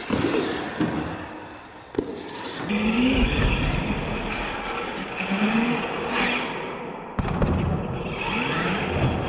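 RC monster truck driving hard on a concrete floor: its motor revs up and down in short bursts, with tyre noise and a few knocks and scrapes as it wheelies, lands and tips over.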